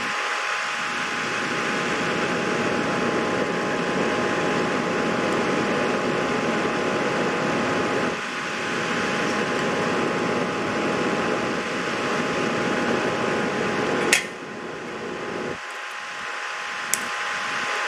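Steady fan-like noise with a faint constant whine. A sharp click about fourteen seconds in, after which the noise drops, and a smaller click near the end.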